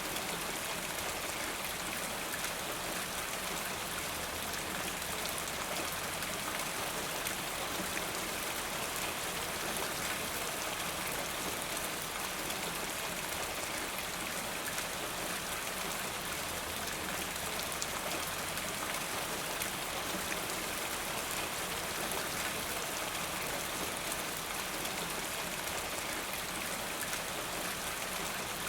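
Steady rain falling, an even hiss of many small drops with fine patter throughout and no changes.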